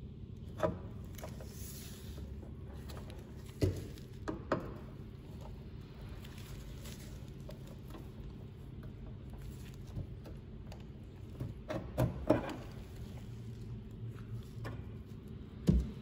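Hand tools and plastic cable clips clicking and knocking against a car's trunk lid as the trunk-release cable is worked loose, in scattered single knocks over a steady low hum.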